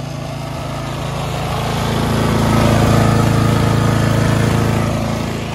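A lawn mower's small engine idling steadily, growing louder toward the middle as it comes close, then easing off.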